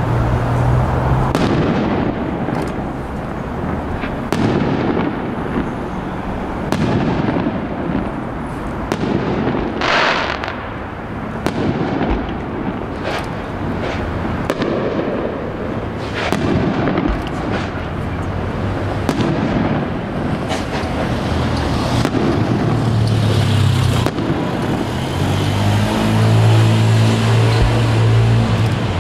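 Aerial fireworks shells being launched and bursting in a steady run of booms and sharp bangs, each followed by rumbling echoes. A low steady hum joins near the end.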